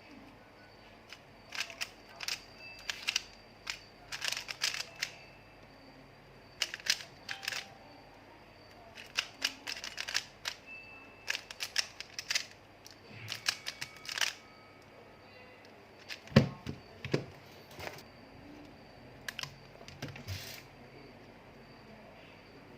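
Clusters of sharp clicks and taps in quick runs, with one louder, deeper knock about two-thirds of the way through and only scattered clicks after it. A faint steady high tone runs underneath.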